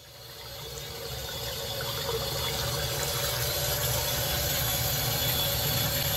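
Tap water pouring from a BWE waterfall-spout vessel sink faucet into a ceramic vessel basin. The flow comes on and builds over the first two seconds or so, then runs steadily.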